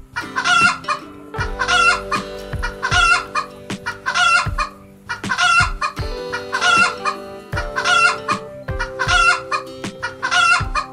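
Chickens clucking, one short call about every second, over background music with held notes and a steady beat.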